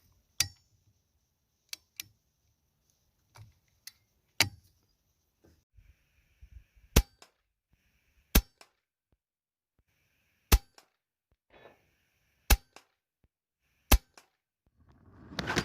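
Hatsan Nova .177 pre-charged pneumatic air rifle firing 19-grain hollow-base slugs: about seven sharp shots, a second or two apart in the second half, with quieter clicks between shots.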